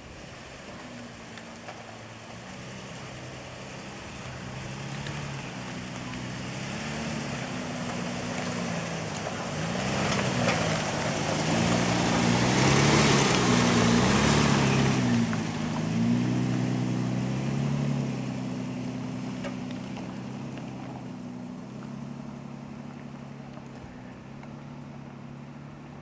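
2008 Toyota Tacoma 4x4 pickup driving on a dirt road: engine hum wavering up and down in pitch over the noise of tyres on dirt, growing louder as the truck passes close about halfway through, then fading as it drives away.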